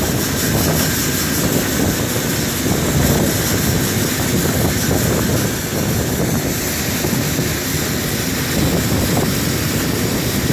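Farm machinery running steadily, with wind buffeting the microphone.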